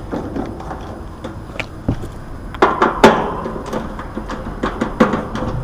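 Scattered sharp knocks and clatter from hands-on work on the unit, loudest about three seconds in, over a steady low background rumble.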